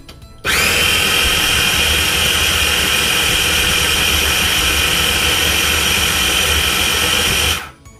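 KitchenAid mini food processor running steadily with a high motor whine as its blade purees a thick curry paste, switching on abruptly about half a second in and cutting off just before the end.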